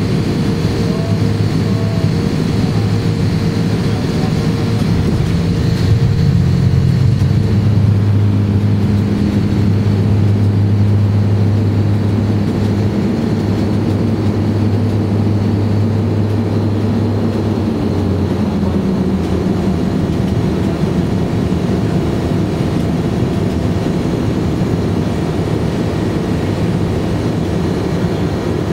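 Garrett TPE331 turboprop engines of a British Aerospace Jetstream 32 running, heard from inside the cabin as a steady drone with a faint high whine. The drone swells and shifts in pitch a few seconds in, then eases back after the middle.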